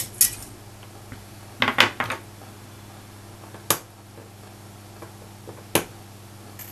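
Side cutters snipping the excess wire leads off freshly soldered resistors on a circuit board: sharp separate clicks a second or two apart, with a quick cluster of them a little under two seconds in.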